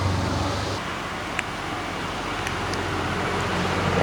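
Steady low background hum and noise, with a few faint, light clicks.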